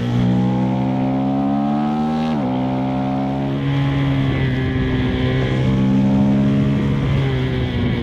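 KTM 390 SMC-R's single-cylinder engine and Stage 2 DNA intake pulling under acceleration. The revs climb for about two seconds, drop sharply at a quick-shifted upshift, then hold and slowly build again.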